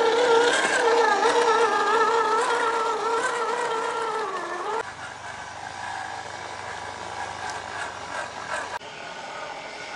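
Electric motor and gearbox whine of an Axial SCX10 II RC crawler driving over rocks and dirt, its pitch wavering with throttle and load and sagging just before it cuts off sharply about five seconds in. A quieter, lower motor hum follows.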